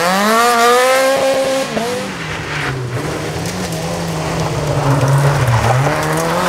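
Small rally cars' engines at full throttle through a corner. One engine climbs steeply in pitch, then drops at an upshift about two seconds in. A second car approaches with a steady engine note, lifts off briefly and accelerates again as it slides past near the end.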